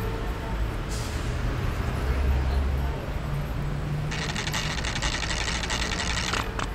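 Steady low rumble of street traffic heard from below a storm drain. About four seconds in, a bright shimmering, sparkling cartoon sound effect starts and runs for about two seconds as the cocoons glow, followed by a few light clicks near the end.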